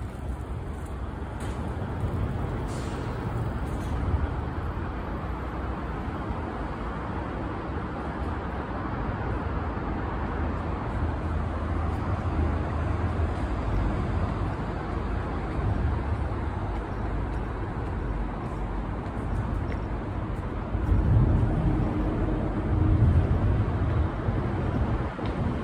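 Steady road traffic noise from passing vehicles, with a louder low rumble swelling twice near the end.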